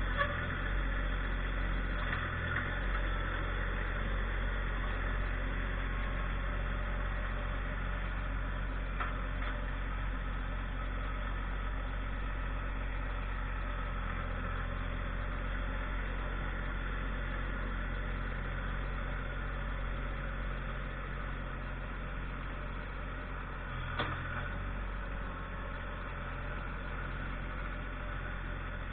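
Tractor engine running steadily, with a few short knocks near the start and again about three-quarters of the way through.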